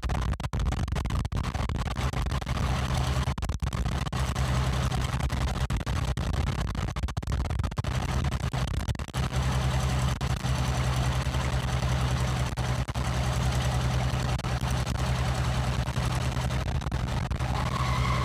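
Rice combine harvester's engine running steadily with a deep hum. Near the end a steady whine joins in.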